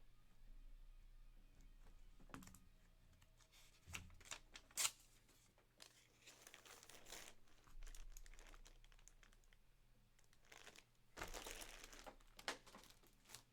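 Faint crinkling and tearing of plastic packaging being handled, with a few sharp clicks and taps between two longer stretches of rustling.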